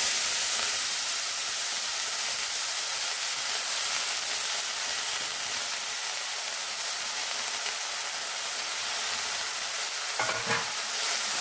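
Finely chopped, freshly washed fenugreek (methi) leaves sizzling in hot oil in a stainless steel kadhai: a steady hiss of the wet leaves frying that eases slightly. A few light knocks near the end.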